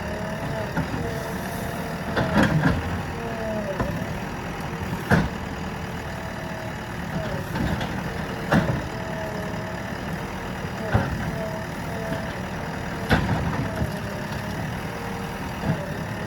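JCB backhoe loader's diesel engine running steadily under work, with a wavering whine and sharp knocks every two to three seconds as the bucket and arm work.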